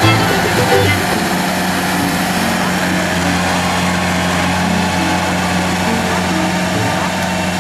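Yanmar YH805 combine harvester's diesel engine running at a steady pitch, with a constant drone.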